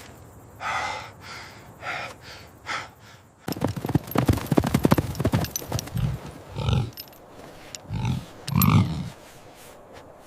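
Hooves clattering rapidly for about two seconds near the middle, then a few low, short grunts from the buffalo.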